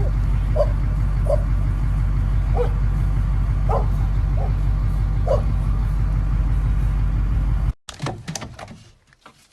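A dog giving about six short, high yips or barks a second or so apart, over a loud, steady low rumble. The rumble cuts off suddenly near the end, and a few faint clicks follow.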